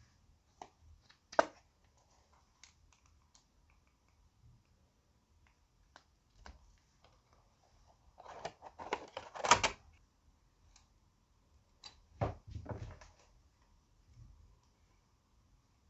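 Hard plastic makeup packaging being handled and opened by hand: scattered sharp clicks and taps, a louder run of plastic clacking and rustling in the middle as a highlighter is taken from its plastic case, and a short burst of clicks near the end as the compact's lid opens.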